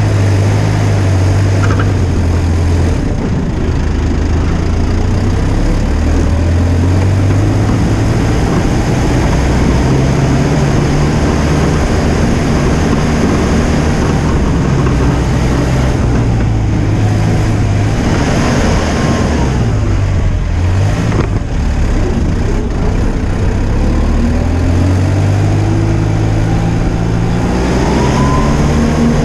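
Tractor engine running steadily while pushing snow with a front containment plow, its engine speed rising and falling. A higher whine rises and falls in pitch around the middle and again near the end.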